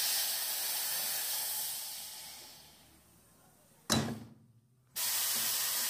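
Aluminium corner crimping machine working under compressed air: a steady air hiss that fades away over about three seconds, a sharp clack about four seconds in, then the hiss starts again near the end.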